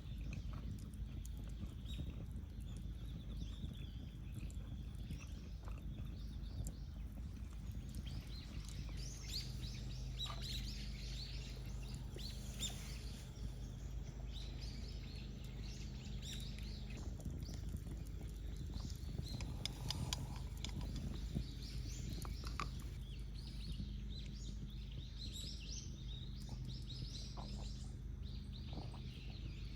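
Small birds chirping and calling, busier after the first several seconds, over a low steady hum, with a few faint clicks.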